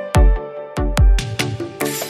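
Background electronic music with heavy bass drum hits and a rising swell near the end.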